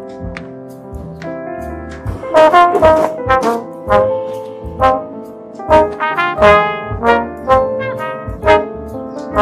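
Jazzy film-score music: quiet short notes at first, then about two seconds in a loud brass melody comes in over steady, evenly spaced bass notes.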